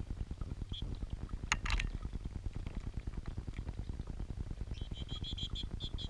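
Small garden fountain bubbling and gurgling right at the microphone. A short sharp splash comes about a second and a half in, and near the end lesser goldfinches give a quick run of high chirps.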